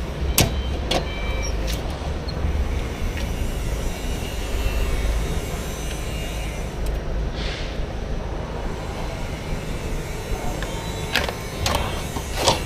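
Scattered clicks and knocks of hands and tools working at a painted-over air filter cover on a generator engine, a couple near the start and a cluster near the end. A steady low rumble runs underneath, with a brief hiss about halfway through.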